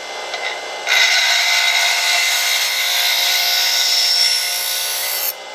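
Bench grinder grinding the point of a rebar awl during its initial sharpening. The motor hums alone for about a second; then the steel meets the wheel and a loud, steady grinding hiss runs for about four seconds before stopping abruptly as the piece is lifted off.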